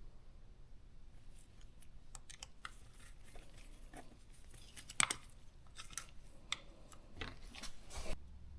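Scattered light clicks, scrapes and crinkling of small things being handled, with one sharper click about five seconds in; the handling stops abruptly a little after eight seconds.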